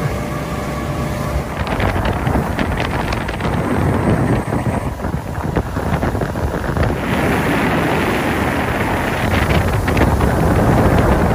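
Wind buffeting the microphone over the rushing water and engine noise of motorboats running at planing speed. Gusts and spray splashes come and go throughout.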